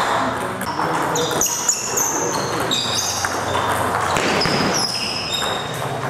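Celluloid-type table tennis balls clicking on table tops and bats, irregular hits from rallies on several tables, each with a brief high ring, a couple per second.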